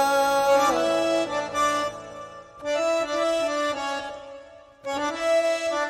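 Instrumental passage of a Hindi film song: a melody of held notes that step from pitch to pitch on a sustained-tone instrument, in three short phrases with brief dips between them.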